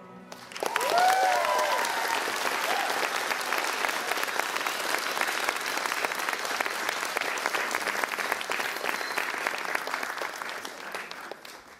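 Audience applauding, a dense clatter of clapping that starts about half a second in and fades away near the end. A few brief calls glide up and down in pitch about a second in.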